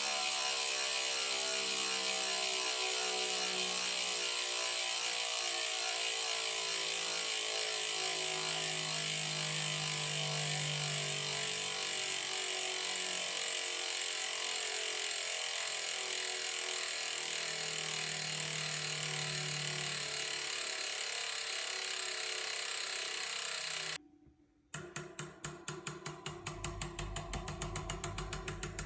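Mavic ID360 ratchet freehub in a Mavic E-Deemax rear wheel clicking as the wheel freewheels: a fast, even run of clicks that blends into a buzz. About 24 s in it cuts out briefly, then comes back as separate, more widely spaced clicks.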